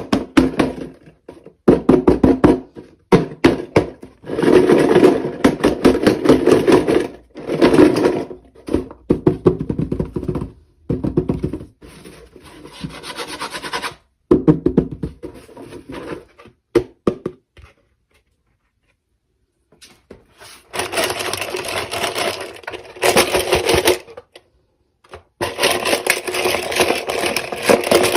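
Close-up handling noise: rubbing, scraping and crackling in bursts that last from a second to a few seconds, with sharp clicks among them and abrupt silences between them.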